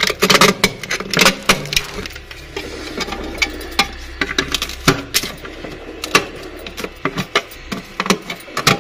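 Plastic scraper scraping and chipping softened frost and ice off the inner wall of a defrosting refrigerator, a run of quick, irregular strokes that thins out for a few seconds in the middle.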